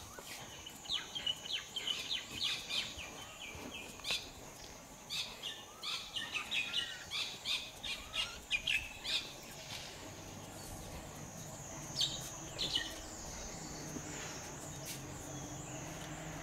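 Small birds chirping in quick runs of short high notes through the first half, with a few more chirps later, over a faint steady high whine.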